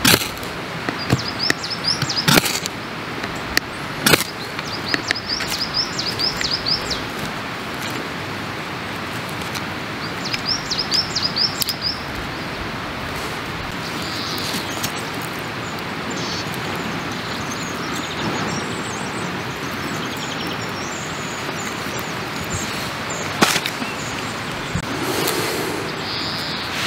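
A small songbird singing short, rapid high trills three times over a steady rushing background noise, with a few sharp knocks scattered through.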